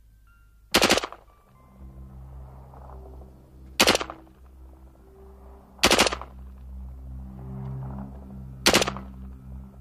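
C7 rifle (5.56 mm) firing four short bursts on full automatic, each a quick cluster of a few shots, about two to three seconds apart, over synthesizer music.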